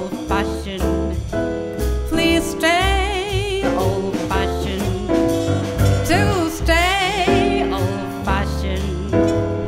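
Small jazz combo playing a swing ballad: piano, double bass, drums and congas under a lead melody that wavers with vibrato.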